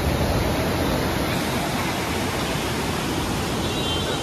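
Fast white-water rapids of the Parvati River rushing over rocks below a bridge: a loud, steady rush of water.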